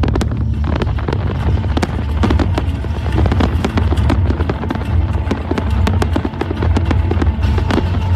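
Fireworks crackling and popping in rapid, dense succession, many sharp reports a second, over a continuous deep rumble.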